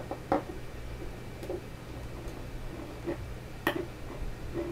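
Small metal alligator clips being handled and snapped onto a component's wire leads: a few sharp clicks, the loudest at the end, over a low steady hum.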